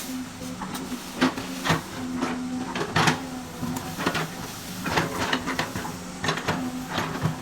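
Excavator at work: a steady motor hum that comes and goes, with irregular sharp knocks and clanks several times a second.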